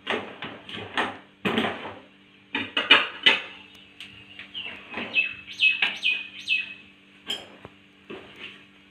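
A ladle scooping idli batter from a plastic tub and pouring it into a steel idli steamer: a busy run of sharp taps and scrapes against the tub's rim and the idli plates, with short squeaks in the middle, over a steady low hum.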